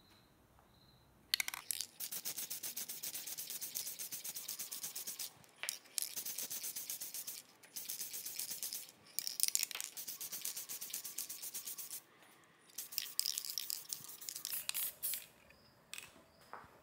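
Aerosol spray paint can spraying in several hissing bursts of a few seconds each, with short pauses between them, as coats of paint go onto 3D-printed parts.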